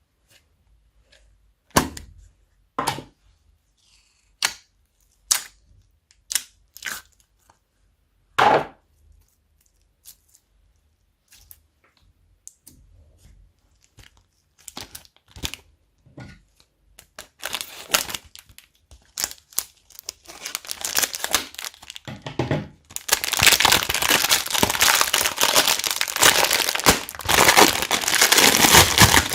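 Slime being mixed and worked by hand: a handful of separate sharp pops, spaced about a second apart, in the first third, then crackling that grows denser and, near the end, runs on continuously.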